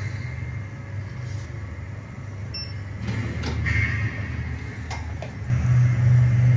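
Background music with a low bass that pulses evenly, growing louder near the end, with a few faint clicks.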